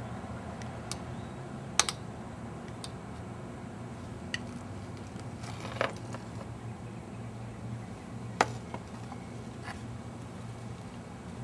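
A spoon clinking against a glass and serving bowls while a yogurt parfait is layered: scattered light taps, three of them sharper and louder, over a steady low hum.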